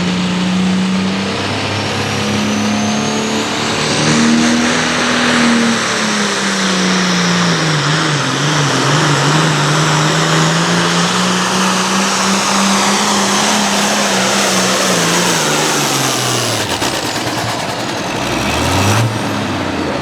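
Hot farm class pulling tractor's diesel engine running flat out under load on the pull, its note sagging about eight seconds in as the sled bears down, recovering, then dropping as it throttles down near the end.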